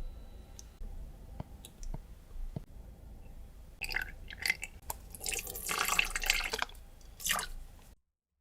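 Soft mascarpone cream-cheese mixture being worked in a bowl: a few light taps, then a run of wet squelching and sticky smacking sounds in the second half that stops suddenly near the end.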